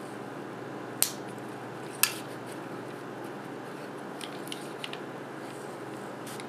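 Two sharp plastic clicks about a second apart as the snap-fit clips on a MakerBot Smart Extruder's housing pop free under a thin flathead screwdriver, then a few faint ticks of the tool and plastic being handled, over a low steady hiss.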